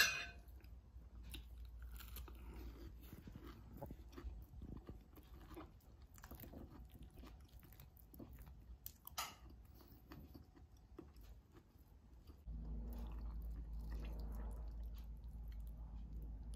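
Knife and fork cutting through a poached egg and mushrooms on a stoneware plate: quiet scattered clicks of cutlery on the plate, with a sharper clink at the start and another about nine seconds in. A low hum comes in about three-quarters of the way through.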